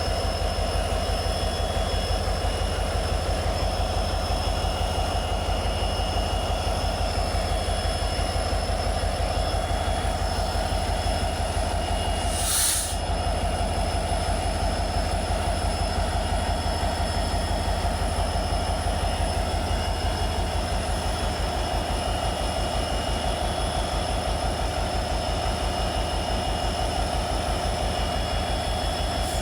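Indian Railways WDG-4 diesel locomotive's 16-cylinder two-stroke EMD engine running with a steady deep hum and a fast low pulsing beat. A short sharp burst of noise cuts across it once, about thirteen seconds in.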